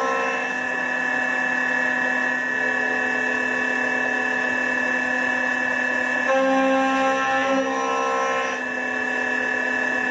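CNC machine cutting an aluminium part: a steady whine of several held tones from the spindle and cutter, changing in pitch mix briefly about six seconds in.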